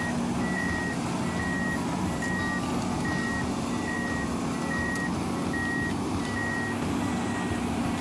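Travel alarm on a tracked earthmoving machine beeping at a steady pace, about three beeps every two seconds, over the steady drone of a diesel engine running.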